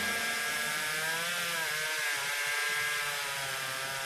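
Ruris 5200 two-stroke chainsaw engine running steadily, its pitch dipping briefly about a second and a half in and again near the end.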